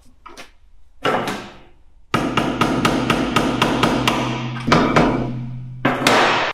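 A hammer tapping a screwdriver against the rear wheel hub's grease cap to work it off. A few strikes come first, then a long run of quick strikes for several seconds, and another short burst near the end.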